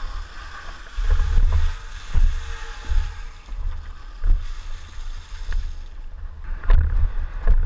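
Irregular low rumbling and buffeting on a body-worn camera's microphone, the handling and wind noise of the wearer moving about, with a few short knocks near the end.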